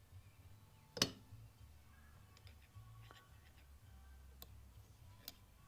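Faint metallic clicks of a screwdriver working a greased roller bearing into place inside a Mercury outboard bearing carrier: one sharp click about a second in, then a few lighter ticks.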